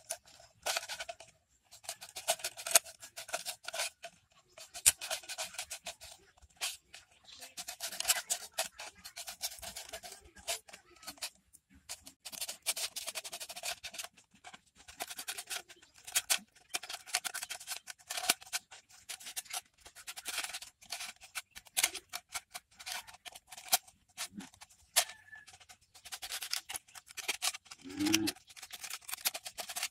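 Scissors cutting through a thin plastic bottle, in bursts of rapid snips with brief pauses between them.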